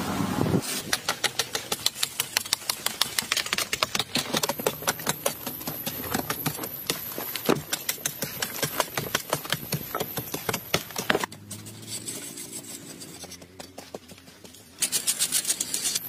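Rapid, repeated strikes of a hoe-like hand tool chopping into hard, dry packed earth, several blows a second. The strikes stop about 11 seconds in for a quieter few seconds and start again near the end.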